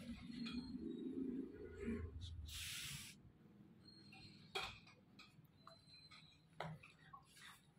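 Faint handling noise: a short hissy rustle about two and a half seconds in and a couple of light clicks over quiet background murmur.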